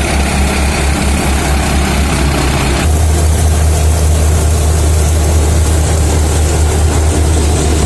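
Engine of a heavy wheat-harvesting machine running steadily with a deep hum. About three seconds in, the higher part of its noise drops away while the low hum carries on.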